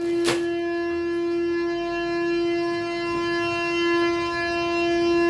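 Public siren sounding the six-o'clock morning wake-up signal: one steady, unwavering tone held throughout.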